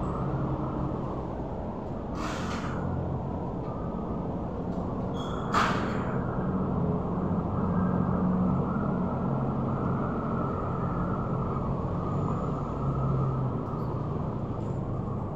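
Steady low rumbling background noise, with two brief hisses about two and five and a half seconds in.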